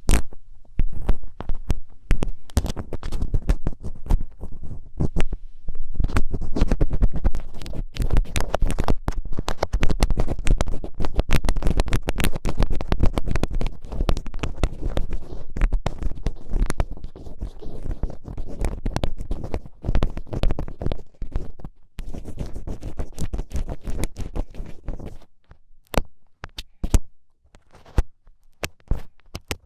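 Thin ear pick scraping and scratching inside an ear, a dense run of crackling scratches with a low rumble that thins to a few separate clicks near the end.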